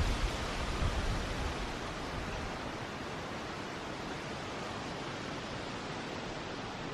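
Steady rushing of a small bubbling creek, with a few low thumps in the first second and a half.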